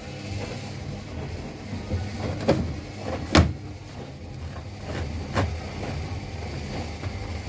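Several washing machines running at once, a steady motor hum with three sharp thuds from the drums, the loudest about halfway through.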